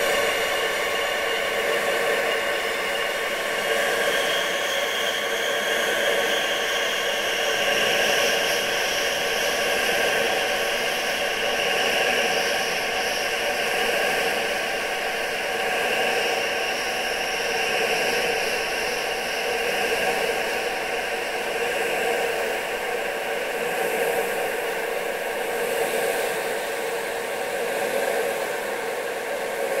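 Wind sound: a steady rushing hiss with several steady tones running through it, gently swelling and easing every couple of seconds.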